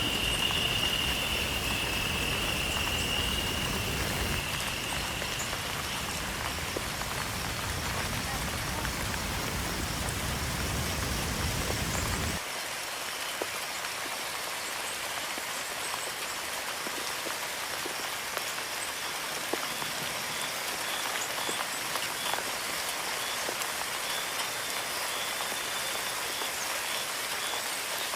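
Steady hiss of running water. A deeper rumble under it drops away abruptly about twelve seconds in, leaving a thinner hiss. A high steady whistling tone sounds over it for the first few seconds and fades out.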